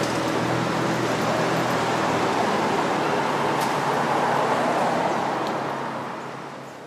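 Street traffic with a city bus passing close by. Engine and tyre noise swells to its loudest about three to five seconds in, then fades away near the end.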